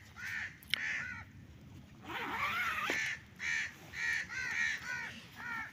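Crows cawing over and over, harsh calls coming in quick runs, with a single sharp click just under a second in.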